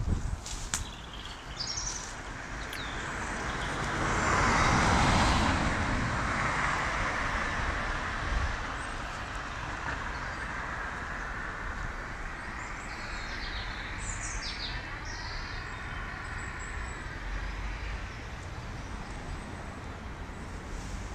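Street ambience: a vehicle passes about four to six seconds in, the loudest sound, and another passes later on. Birds chirp briefly near the start and again partway through.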